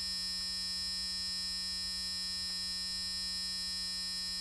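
A steady electronic alert tone, an unbroken buzz made of many stacked pitches, laid over the tornado warning screens.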